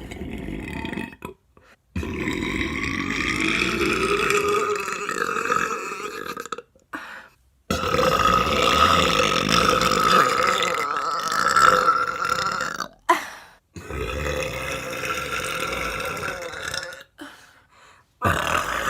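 A woman burping: a short burp, then a series of long, drawn-out belches lasting several seconds each, with brief pauses between them and another starting near the end.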